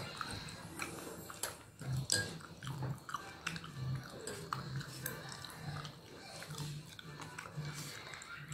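A person chewing food with the mouth close to the microphone: repeated wet mouth clicks and smacks over a slow chewing rhythm.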